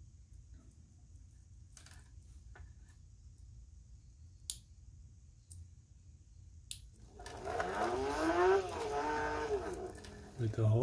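Hoverboard brushless hub motor driven by a sensored hall-effect controller, starting gently about seven seconds in: a whining hum that rises in pitch and then falls back. A few faint clicks come before it.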